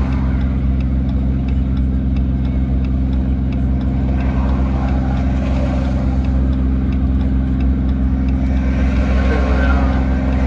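Steady drone of a truck's engine and road noise heard from inside the cab while cruising at a constant speed of about 50 mph on cruise control.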